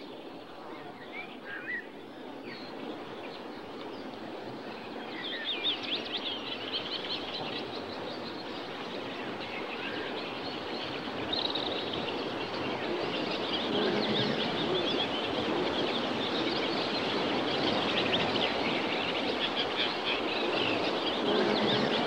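Outdoor ambience: a steady hiss with faint chirping of small birds, slowly getting louder.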